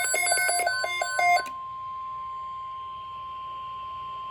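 A loud, rapidly pulsing electronic alarm beeping for about the first second and a half, overlapped and then followed by a single steady tone near 1 kHz: the NOAA Weather Radio warning alarm tone that sounds ahead of a National Weather Service alert, here a tornado watch.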